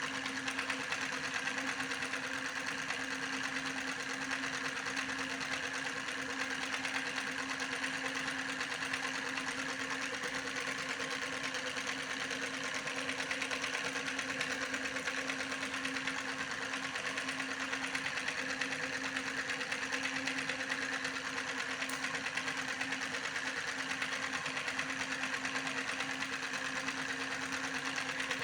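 A small motor spinning continuously, with a steady hum and a fast, even rattle.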